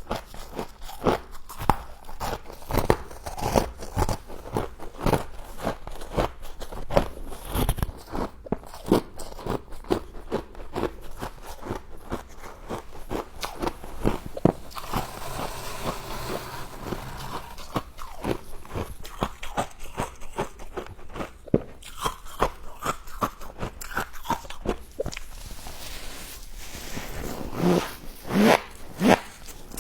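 Biting and chewing crunchy humidifier frost: a dense, irregular run of crisp crunches and crackles, with a softer stretch about halfway through.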